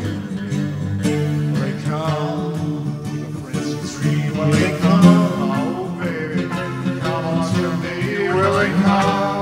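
Rock music: an instrumental passage with guitar.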